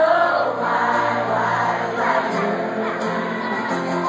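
Live country band performance with a female vocal trio singing in harmony over guitar and bass, sustained, gliding sung notes, recorded from the audience.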